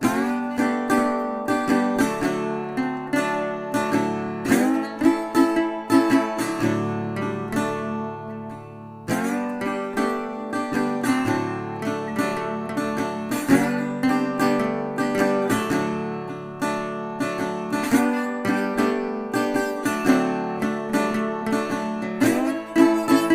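Background music: acoustic guitar picking and strumming with a steady rhythm.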